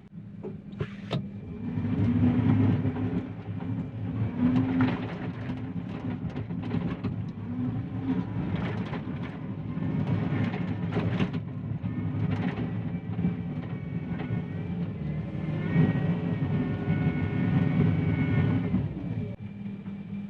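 John Deere 333E compact track loader working hard: its diesel engine runs up about two seconds in and labours under load, with scattered clanks and a rising whine late on, then eases off near the end.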